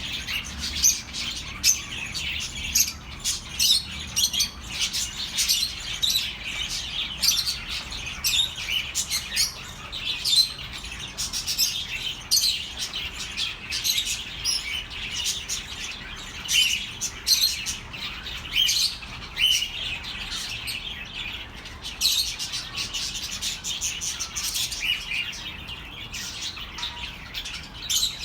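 A flock of budgerigars chirping and chattering, many short calls overlapping without a break.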